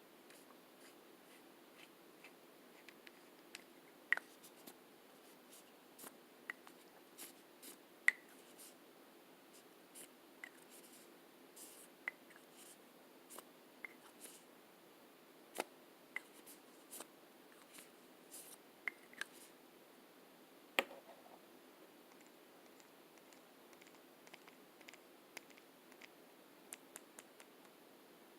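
Lipstick tubes and caps handled close to the microphone: scattered, irregular soft clicks and taps, a few of them sharper and louder, over faint hiss.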